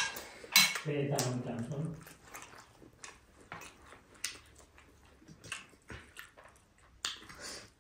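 Close-up mouth sounds of eating: a sharp click at the start and a short voiced hum, then a run of quiet, irregular wet clicks and smacks of chewing.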